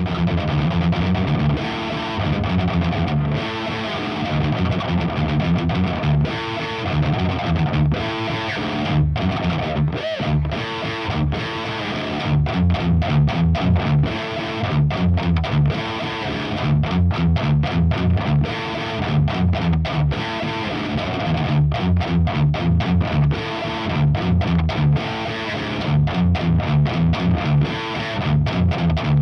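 High-gain distorted electric guitar riffing: a Jackson JS32 Dinky with active EMG 81/85 pickups through a Diezel VH4 tube head and a Marshall 4x12 cab with Celestion G12K-100 speakers. It plays rhythmic low chugs with short breaks between phrases.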